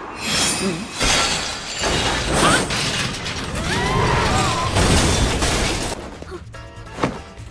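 Anime action sound effects: about six seconds of dense crashing and mechanical clattering with a few short pitched cries in it, then it drops away to a few scattered clicks.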